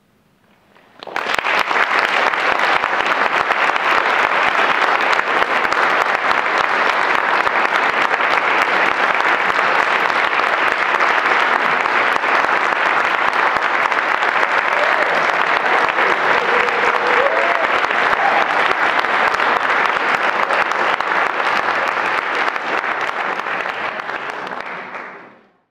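Audience applause that breaks out about a second in, keeps up steadily, and fades away near the end.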